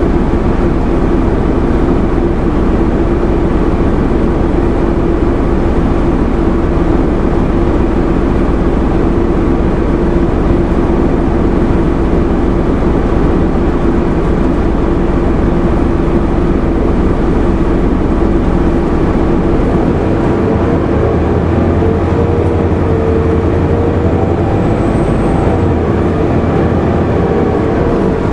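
2001 Nova Bus RTS transit bus with a Detroit Diesel Series 50 four-cylinder diesel and ZF transmission, heard from inside while under way: a loud, steady engine drone with a held tone. About twenty seconds in, the engine note changes and wavering tones come in.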